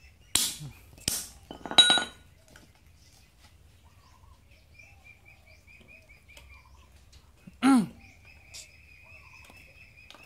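A steel hammer striking hard fuel pieces on a concrete floor: three sharp blows in the first two seconds, the last ringing. About eight seconds in, a single bird call falls in pitch, over a faint high trill.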